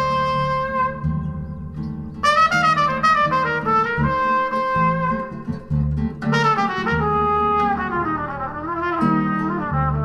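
Recorded music played back through a 1625 single-ended ultralinear valve amplifier and large horn-loaded loudspeakers: a lead instrument plays a melody of held and gliding notes over a bass line.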